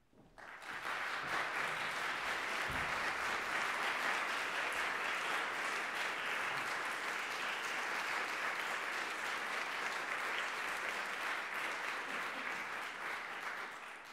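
Audience applauding steadily, starting about half a second in and dying away near the end.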